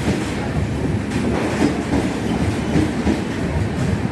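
Passenger express coaches rolling past close by, their wheels clattering steadily over the rail joints with frequent irregular knocks.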